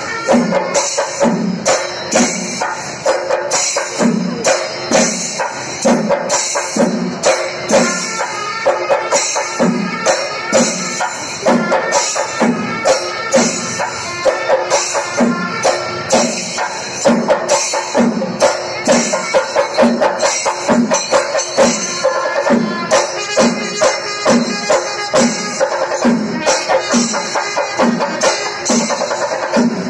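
Traditional percussion-led festival music: a steady drum beat of about three strokes every two seconds under jingling cymbals, with a sustained melody over it.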